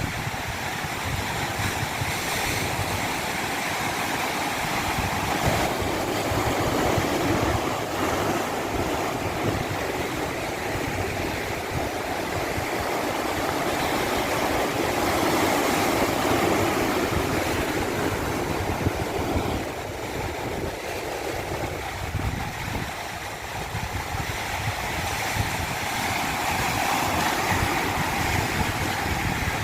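Continuous rushing water, a steady hiss and rumble that swells and eases slowly over several seconds.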